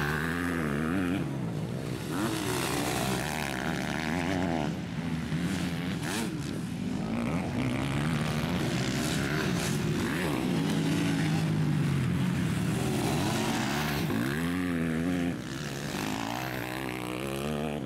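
MX2 motocross bike engines revving hard as the bikes race through the track, the pitch rising and falling with throttle and gear changes. The sound drops suddenly about fifteen seconds in.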